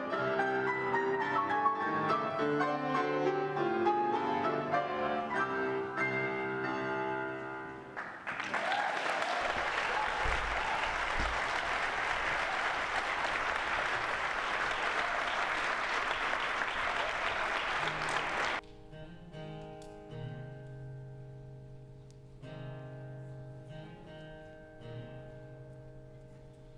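Piano music finishing about 8 s in, followed by audience applause for about ten seconds that stops abruptly. Then a soft keyboard introduction of held chords.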